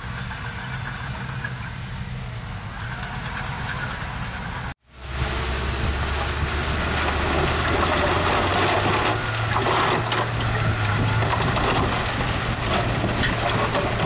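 Diesel engine of a construction machine running steadily. About five seconds in the sound drops out for an instant, then returns louder, the engine now under a rough, noisy layer.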